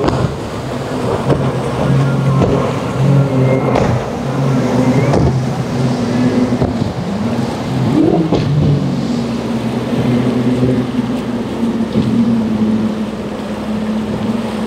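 Motorboat engines running, their pitch shifting with the throttle and gliding up and down briefly about halfway through, over water and wind noise.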